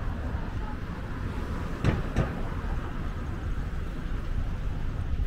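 City street ambience: a steady low rumble of road traffic, with two sharp clicks a fraction of a second apart about two seconds in.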